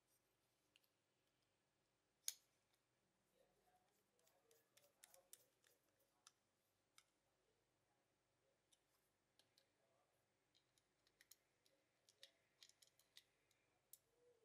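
Faint clicks and light taps of a diecast toy car being reassembled by hand, with one sharper click about two seconds in. Later, a small precision screwdriver works screws into the metal base, with clusters of small clicks.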